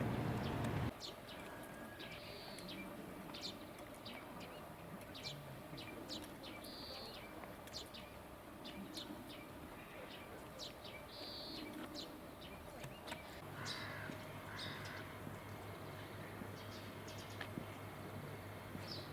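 Small birds chirping, with many short, high calls repeating over a quiet outdoor background. A louder rushing noise cuts off suddenly about a second in, and a low steady hum joins about two-thirds of the way through.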